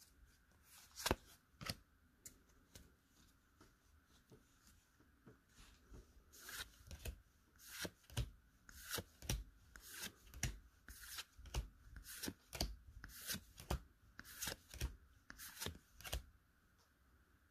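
Pokémon trading cards sliding and flicking against one another as they are moved through the stack of an opened booster pack. It is a run of faint, sharp swishes: a couple about a second in, then about two a second from about six seconds in.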